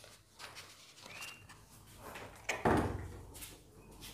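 Tabletop handling sounds: faint clicks and a brief squeak as a plastic bottle cap is screwed shut, then a louder scrape with knocks from about two and a half seconds in, as a spoon goes into a plastic bowl of damp sand-and-sawdust paste.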